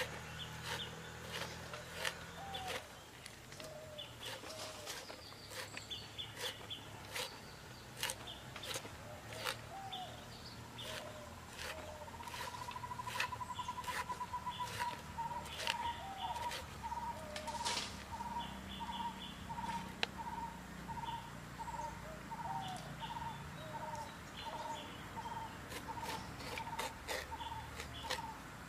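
Birds calling: scattered chirps, a short rapid trill, then one note repeated steadily about one and a half times a second. Sharp clicks and snaps throughout, from a banana flower being peeled by hand and cut with a knife.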